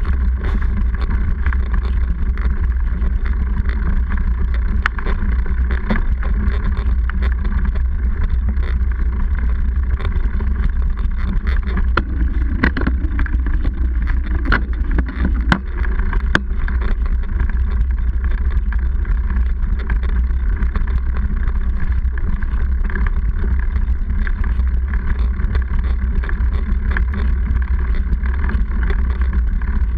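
Mountain bike rolling over a dirt trail, heard through an action camera clamped to the seatpost: a loud steady low rumble from the knobby tyres and frame vibration, with frequent knocks and rattles from bumps, more of them about halfway through.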